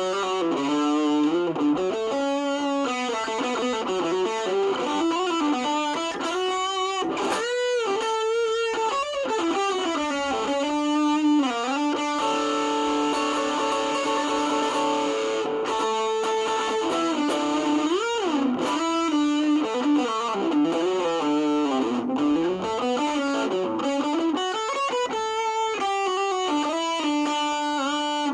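Electric guitar played through a distortion pedal, with single-note lead lines, long sustained notes and several string bends.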